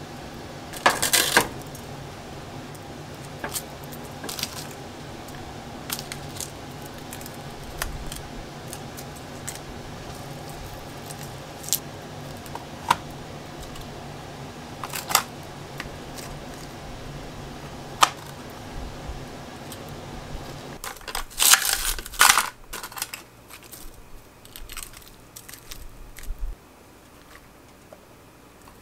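Kitchen handling sounds: a metal spoon clinking and scraping against a black earthenware stew pot, and ingredients being set into the pot. Sharp single clinks come every few seconds, with a quick flurry of clatter about two-thirds of the way through, over a low steady hum that stops at that point.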